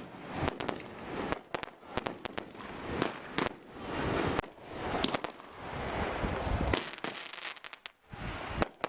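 Aerial fireworks shells bursting overhead in rapid succession: many sharp bangs and crackles, with a brief lull about eight seconds in before a couple more bangs.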